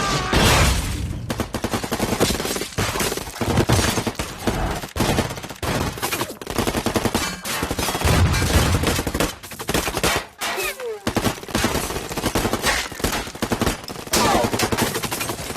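Film gunfight sound effects: sustained, rapid automatic-weapon fire, many shots overlapping, with heavier booming impacts here and there and short whizzing glides about ten seconds in and near the end.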